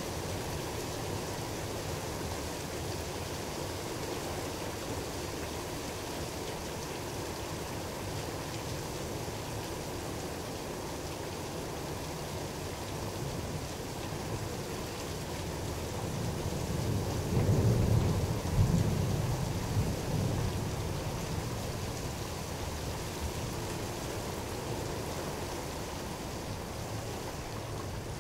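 Steady rain falling during a thunderstorm. About two-thirds of the way through, a roll of thunder swells, is loudest for a few seconds and then fades back under the rain.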